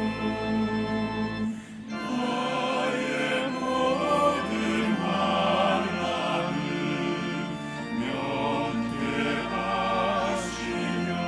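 A choir singing in a service, over sustained low accompanying notes. The voices come in after a short dip about two seconds in.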